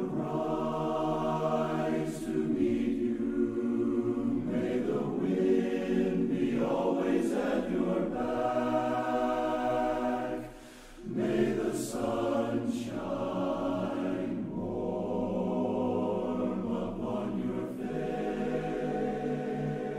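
A men's barbershop chorus singing a cappella in close harmony, holding sustained chords, in a virtual-choir mix of separately recorded voices. There is a brief pause between phrases about halfway through.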